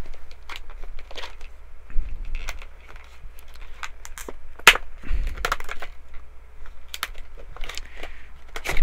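Packaging being handled during an unboxing: irregular sharp crinkles, snaps and clicks of plastic and cardboard, with two low knocks about two and five seconds in.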